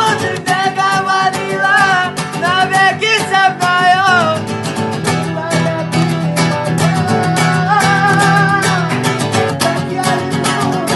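Music: a song with guitar and a wavering melody line that bends in pitch, over a steady low accompaniment.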